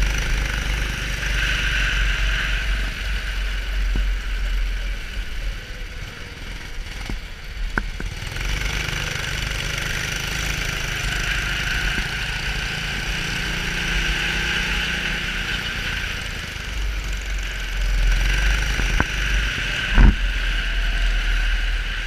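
Onboard sound of a CRG Centurion rental kart's 270cc four-stroke engine running hard on the track, easing off briefly about six seconds in and then picking up again. A sharp knock sounds about twenty seconds in.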